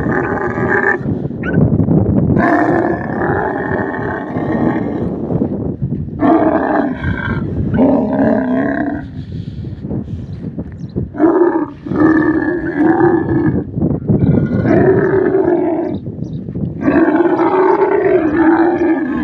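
Male camel in rut, frothing at the mouth, calling loudly while mounting a couched female. It gives about six long, pitched roaring calls, each one to three seconds long, with short pauses between them.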